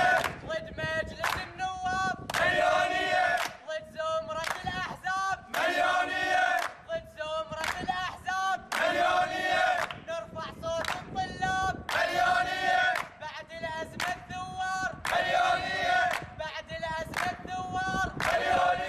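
A group of young men chanting a protest chant in unison, with a loud phrase recurring about every three seconds, and hand-clapping between the phrases.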